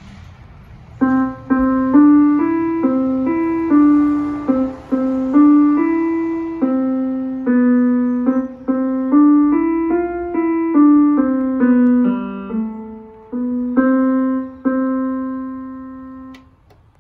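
Electronic keyboard played in a piano voice: a simple tune of short notes, mostly one at a time, beginning about a second in and closing on a longer held note near the end.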